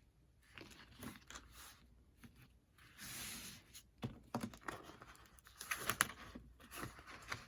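Paper and craft materials being handled on a table: faint rustles and small clicks, with a longer scraping swish about three seconds in.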